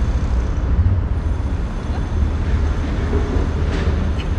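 Outdoor ambience: a steady, loud low rumble with an even hiss above it.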